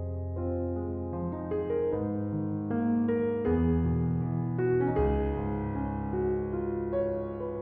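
Slow, gentle piano music: sustained notes changing every half second or so over held low bass notes.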